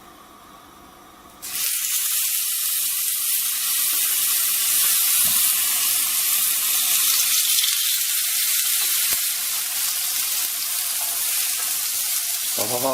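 Olive-oiled watermelon pieces sizzling on a hot grill pan, the loud hiss starting suddenly about a second and a half in as they go into the pan and holding steady.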